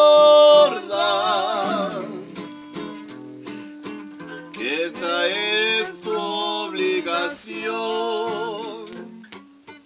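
A singer sings a Mexican ranchera over a strummed acoustic guitar. A long note is held at the start, then come wavering phrases with vibrato, and the music fades near the end.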